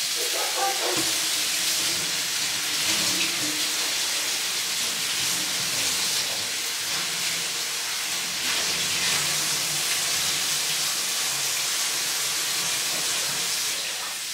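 Tomatoes and chilies frying in a hot pan: a steady sizzling hiss as the wet vegetables cook in the oil.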